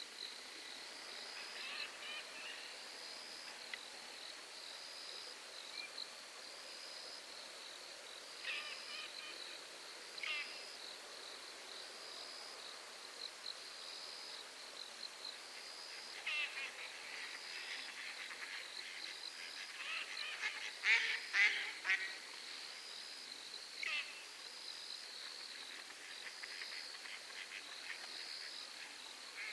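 Night lakeside animal chorus: a high note repeats about every two seconds throughout, and harsh screeching calls break in at intervals, loudest in a cluster about two-thirds of the way through.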